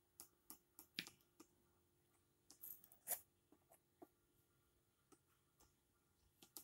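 Metal palette knife scraping and tapping thick acrylic paint on paper: a series of faint clicks and short scrapes, with the loudest scrape about three seconds in.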